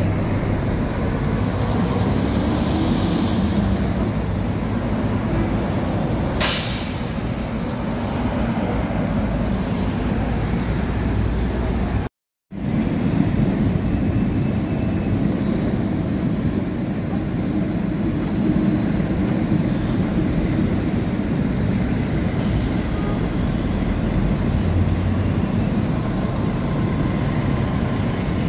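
Intercity bus engine running with a steady low rumble, and a short sharp hiss of air brakes being released about six seconds in. The sound cuts out completely for a moment about twelve seconds in.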